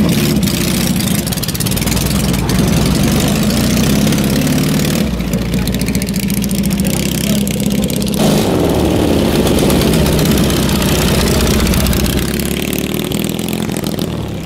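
Dnepr K750 sidecar motorcycle's side-valve flat-twin engine running steadily as the machine pulls away, its engine note changing abruptly twice.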